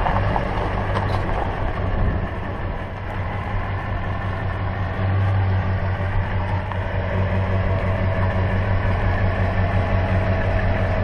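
Pickup truck engine running steadily as the truck, towing an enclosed cargo trailer, pulls up and comes to a stop; a steady low hum.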